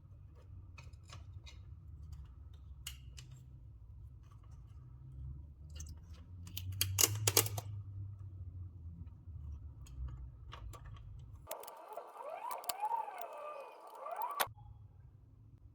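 Scattered small clicks and taps over a low hum, with a louder clatter about seven seconds in; then, near the end, about three seconds of a tone that swings up and down in pitch, during which the hum cuts out.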